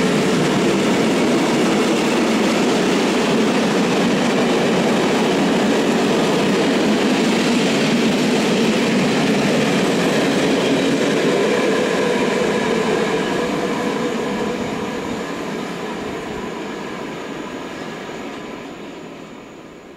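Freight train of flat wagons rolling past at speed, a loud steady rolling noise from wheels on rails. It fades away over the last several seconds as the end of the train recedes.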